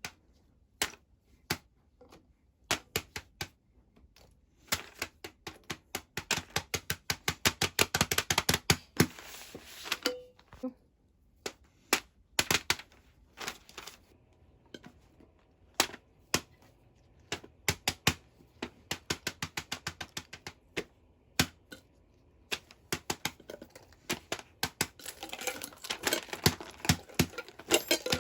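Small plastic fidget toys being clicked and handled: sharp single clicks and fast runs of clicking, densest from about five to nine seconds in and again near the end.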